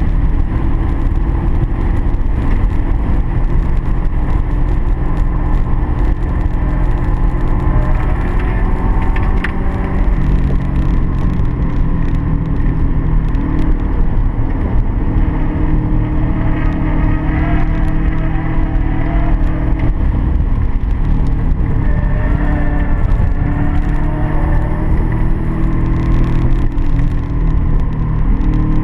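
Race car's engine running hard at track speed, its pitch repeatedly rising and falling with throttle and gear changes, over steady road and wind noise.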